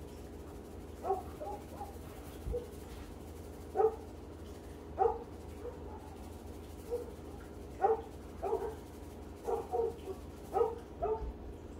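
A dog giving about a dozen short, pitched yips at uneven intervals, over a steady low hum.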